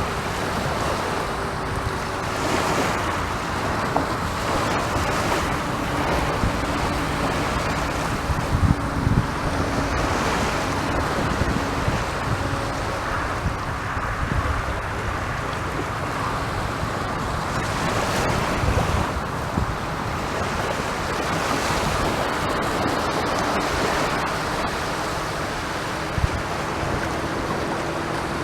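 Surf on a beach: waves breaking and washing in, swelling and easing every few seconds, with wind buffeting the microphone. A faint steady hum sits underneath.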